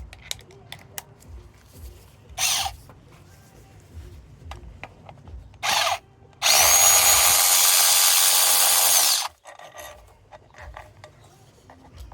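Power tool buzzing out engine mount bolts: two short blips, then a steady run of about three seconds whose whine drops away as the motor stops.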